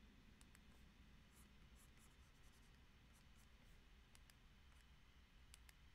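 Faint ticks and light scratches of a stylus nib on a GAOMON PD156Pro pen display's screen, over a low room hum; a few sharper taps come near the end.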